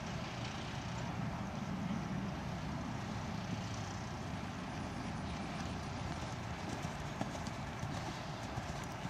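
A horse's hoofbeats on sand arena footing, becoming clearer over the last couple of seconds as the horse comes closer, over a steady low rumble of background noise.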